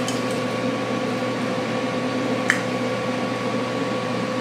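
Steady electric fan hum, with one short sharp click about halfway through as locking pliers are clamped shut on two pieces of steel.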